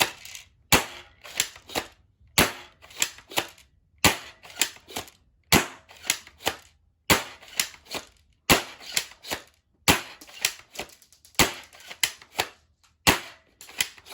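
Spring-powered airsoft pump-action shotgun fired over and over, about once every second and a half. Each sharp snap of a shot goes with the plastic clacks of the pump being racked to cock the spring for the next shot.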